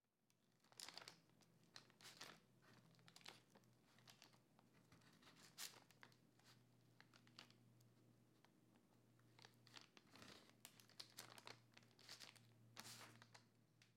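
Faint, irregular crackles and soft tearing as chopsticks prod and pull apart the soft, sticky glutinous-rice skin of a steamed red tortoise cake, its dry peanut-powder filling crumbling out onto parchment paper. A faint low hum sits underneath.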